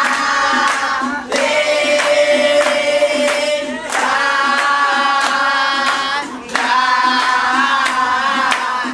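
Group of voices singing long held notes without words, breaking about every two and a half seconds, over steady rhythmic hand clapping of about three claps a second.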